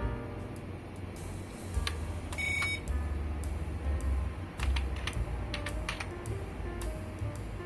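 Computer keyboard typing in scattered keystrokes over background music, with one short high beep about two and a half seconds in.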